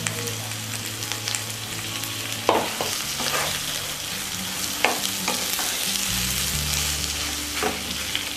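Spiced mashed potato and fresh fenugreek leaves sizzling in oil in a nonstick kadhai as they are stirred and turned with a wooden spatula, with a few sharp knocks of the spatula against the pan.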